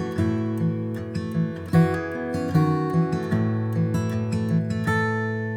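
Acoustic guitar playing the picked and strummed intro of a song, with a steady bass line beneath.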